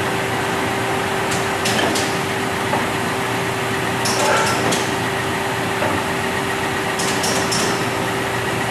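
Sharp clicks and clunks from the headstock controls of a Nardini engine lathe as knobs and levers are worked. They come in three short clusters, about a second and a half, four and seven seconds in, over a steady machine hum.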